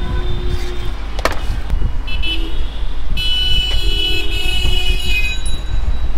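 Street traffic: a steady low rumble with vehicle horns tooting, the longest toot from about three seconds in to about five and a half seconds in. A single sharp knock about a second in.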